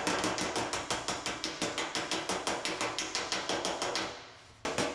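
Body hammer tapping a metal car fender against a heavy dolly in quick, even blows, about six a second, with a short pause near the end before the tapping starts again. This is hammer-on-dolly work to knock down the high ridge (eyebrow) beside a dent and relieve the stress in the panel.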